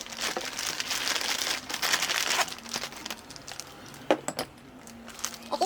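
Crinkling, rustling handling noise for the first couple of seconds, then quieter fumbling with a sharp click about four seconds in.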